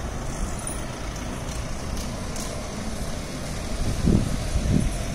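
Steady low rumble of city street traffic, with two brief low thuds about four seconds in.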